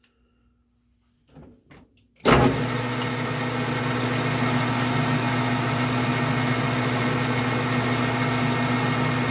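Metal lathe switched on about two seconds in, its motor starting abruptly and then running at a steady hum. A few faint handling clicks come just before it starts.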